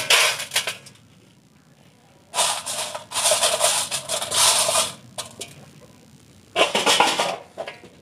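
Small iron pieces from ground-up tactile switches clattering against a steel pan as they are dropped off a magnet and raked by hand. The rattling comes in three bursts: one at the start, a longer one from about two and a half to five seconds in, and a short one around seven seconds.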